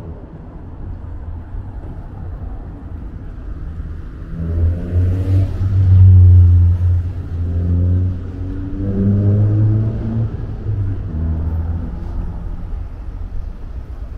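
A motor vehicle's engine passing close by, its note rising and falling as it drives past. It is loudest about six seconds in and fades near the end, over a steady background hum of city traffic.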